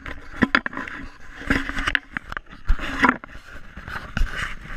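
Irregular knocks, clicks and scraping close to the microphone: handling noise from the camera being moved about by hand.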